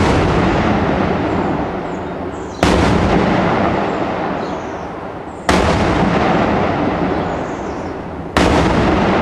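Daytime aerial firework shells bursting overhead: three loud bangs about three seconds apart, each followed by a long rumbling echo that slowly dies away.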